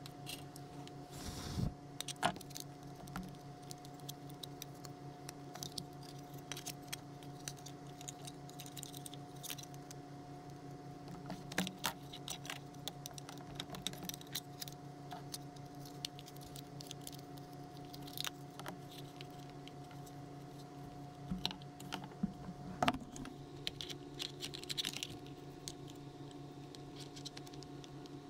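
Scattered light clicks and rattles of a plastic battery-adapter housing and its wired circuit board being handled and fitted together, over a steady low hum.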